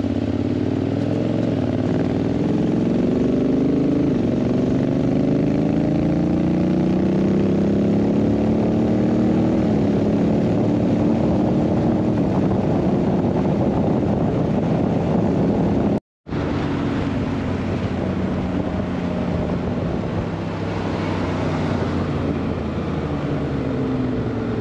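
Honda X-ADV 750's parallel-twin engine pulling away and accelerating hard, its pitch climbing and then stepping down at each automatic gear change, several times. It then settles into cruising under a rush of wind and road noise, and the pitch falls as it slows near the end. The sound cuts out for a moment about two-thirds of the way through.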